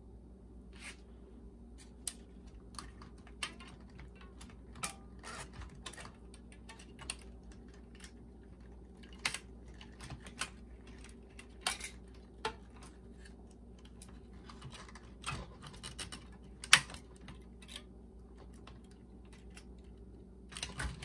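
Irregular sharp clicks and light scraping as small plastic and metal parts and wire connectors inside an opened JVC M70 boombox are handled, with one louder click about 17 seconds in.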